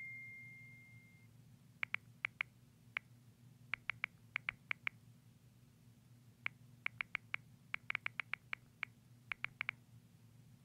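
Knocking on a door: quick, sharp raps in repeated bursts of three to eight, with short pauses between, over a faint steady hum. A brief high steady tone sounds at the very start.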